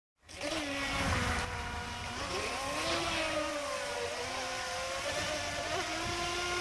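Two electric radio-controlled speedboats running at speed, their brushless motors whining, one a TP2935 5500 kV. The pitches rise and fall as the boats turn, over a steady hiss.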